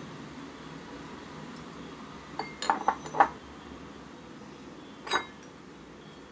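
A metal spoon clinking against a bowl while ingredients are measured in: a quick run of four or five clinks a little over two seconds in, then one more clink about five seconds in.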